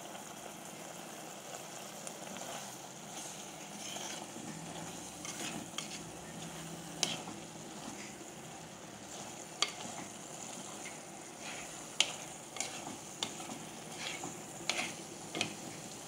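A steel spoon stirring a thick, dry coconut-paste curry of raw mango and drumstick in a clay pot, giving scattered scrapes and sharp clicks against the pot, over a faint steady sizzle from the pot on the flame.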